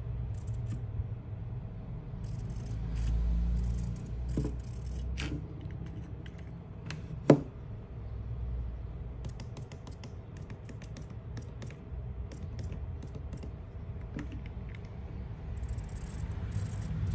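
Light plastic clicks and rattles from a small RC drift car and its pistol-grip transmitter being handled, over a low steady hum, with one sharp click about seven seconds in.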